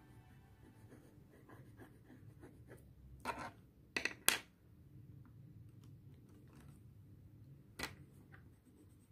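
Coloured pencil scratching softly on paper as a child colours in a drawing. A few sharp clicks come a little over three and four seconds in, and again near eight seconds, as pencils knock on the table when she swaps from the yellow pencil to a brown one.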